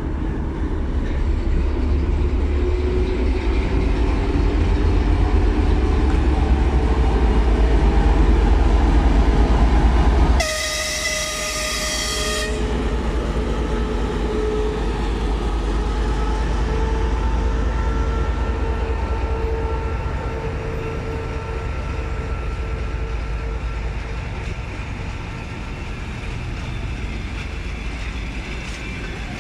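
TEP70 passenger diesel locomotive pulling away, its 16-cylinder diesel engine rumbling heavily with a note that climbs as it powers up. About ten seconds in a horn sounds for about two seconds. After that the engine note drops back and the passenger coaches roll past on the rails.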